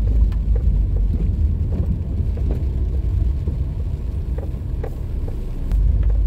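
Low, steady engine and road rumble heard from inside a vehicle driving slowly through rainy city traffic, with scattered light ticks. The rumble grows louder about five and a half seconds in as the vehicle pulls ahead.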